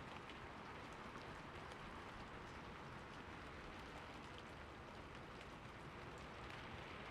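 Steady rain falling, a soft even hiss with scattered single drop hits.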